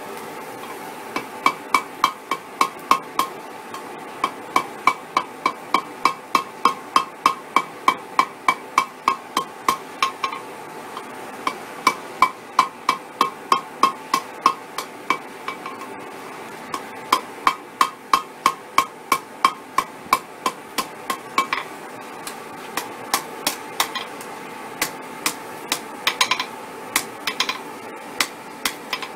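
A hand hammer strikes red-hot mild steel on an anvil, shaping a chain link over the horn. The blows come in quick runs of about three a second, each with a ringing note, broken by short pauses. Near the end there are a few more spaced-out blows.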